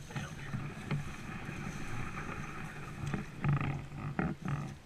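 A kayak moving through a canal choked with reeds and water plants: water splashing from paddle strokes, with stems and leaves rustling and scraping along the hull in irregular knocks, a cluster of them near the end.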